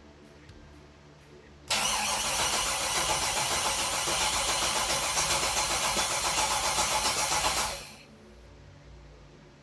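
Starter motor cranking a rebuilt GM LM7 5.3-litre V8 without it firing, with sensors unplugged, to prime the oil system. It cranks steadily for about six seconds from nearly two seconds in, then stops, and no oil pressure has come up yet.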